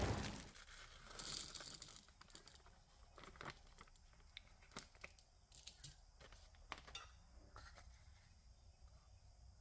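Faint bench handling noises: a plastic bag crinkling about a second in, then scattered light clicks and taps as the tin of powdered steel and the canister of steel ball bearings are handled. At the very start the tail of a boom from the intro fades out.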